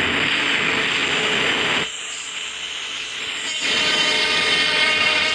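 Train running noise: two loud stretches of rushing rail noise, the first stopping abruptly a little under two seconds in, the second starting abruptly about three and a half seconds in with a faint high whine in it.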